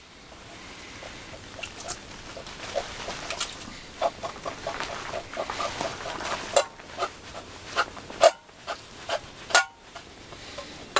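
A metal spoon scraping and knocking inside a tin can as canned mini ravioli in sauce is scooped and shaken out into a small metal pot, with wet squelching of the sauce and a few sharper clanks of metal on metal near the end.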